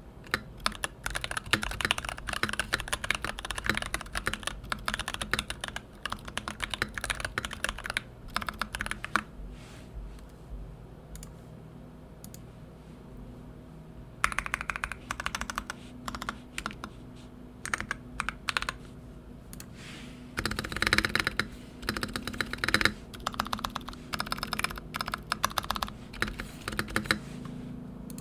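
Typing on an NK65 mechanical keyboard with lubed and filmed Koala tactile switches and PBT keycaps: rapid runs of keystrokes, thinning to a few scattered presses for several seconds about a third of the way through, then picking up again in bursts. The board sounds a little higher-pitched overall.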